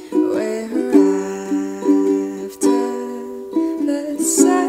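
Background music of plucked strings, with a new note or chord about once a second.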